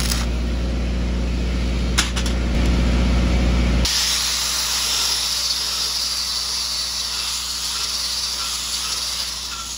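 A stick welding arc crackling and hissing steadily over a low hum, with one sharp click about two seconds in. Just before four seconds it cuts abruptly to a DeWalt angle grinder running against the weld, a steady high whine and hiss.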